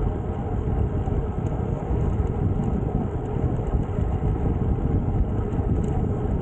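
Steady rushing of wind on the microphone of a camera riding on a moving road bike, mixed with the hum of the Canyon Ultimate CF SL's tyres rolling on asphalt.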